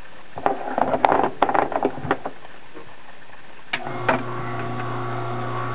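A scatter of light knocks and clatter as apple pieces and a plastic cup are handled for about two seconds. Then, a little before four seconds in, a click as an electric masticating juicer is switched on, and its motor starts a steady low hum.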